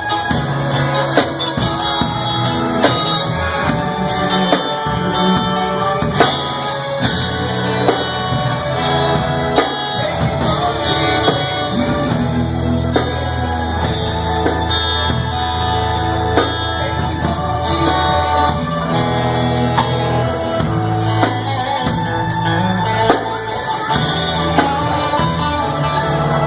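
A band playing a song, guitar over bass and a steady drum beat, with singing.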